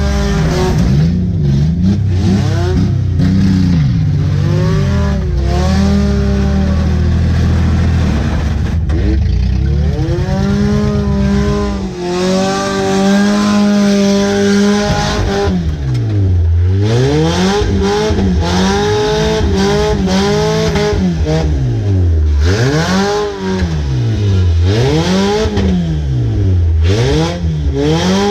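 Demolition derby car's engine heard from inside the cabin, revving hard. From about halfway through, its pitch climbs and drops over and over, roughly every two seconds.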